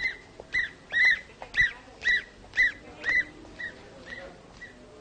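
An animal's short, high, chirping cries that rise and fall in pitch, repeated about twice a second; they are loudest for the first three seconds, then grow fainter.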